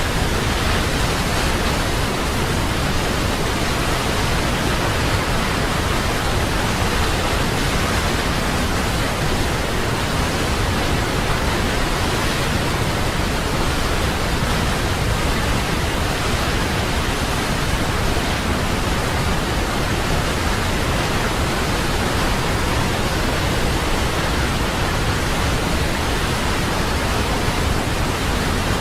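Waterfall: water falling in a steady, even rush of noise, unchanging throughout, with weight in both the low and high pitches.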